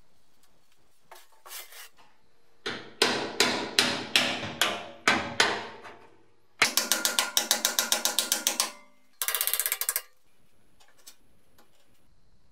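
Hammer driving a chisel against the rusty steel fuel tank of a BMW E30 to knock off its retaining clips: about seven ringing metal blows, then a fast run of about ten strikes a second, then a brief higher rattle.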